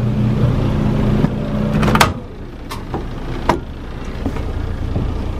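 Clothes dryer running with a steady hum that cuts off about two seconds in as its door is pulled open mid-cycle, with a sharp click of the door latch. A few knocks and clicks follow as the door is handled and the drum is looked into.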